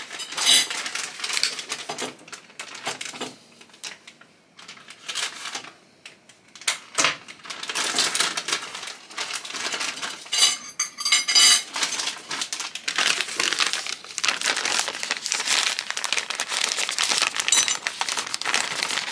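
Scattered clinks and knocks of dishes and cutlery, then steady crinkling from about halfway, as a plastic bag of microwaved green beans is handled and the beans are shaken out onto a ceramic plate.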